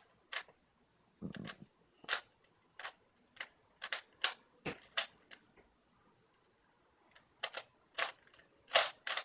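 Rubik's cube being turned fast by hand: irregular sharp plastic clicks and clacks as the layers snap round, with a pause of about a second and a half in the middle and a cluster of louder clacks near the end.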